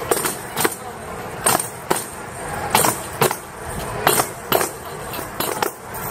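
Tambourines struck by a group of folk dancers, sharp jingling hits in a repeating pattern of two about every second and a half, over background music.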